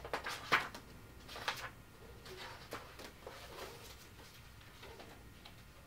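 Faint rustling and soft clicks of book pages being handled and turned, a few separate touches, the clearest about half a second in.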